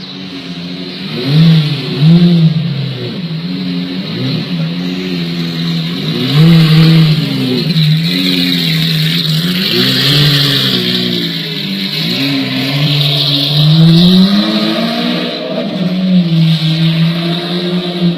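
Car engine running hard, its pitch climbing and dropping again and again as it is revved, over a steady hiss.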